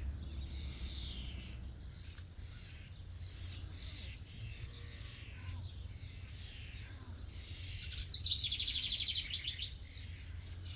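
Wild songbirds chirping and calling, with a rapid, buzzy trill about eight seconds in as the loudest sound, over a low steady rumble.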